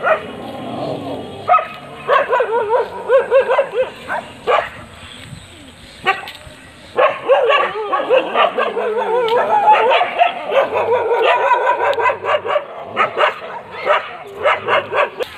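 Several street dogs barking and yelping together, with long wavering cries in two stretches and short sharp barks between them.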